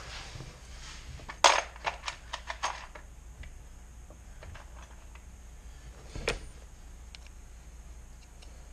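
Sharp clicks and clinks of small hard parts being handled at a workbench: a cluster of several clicks about a second and a half in and a single louder click a little after six seconds, with faint ticks between.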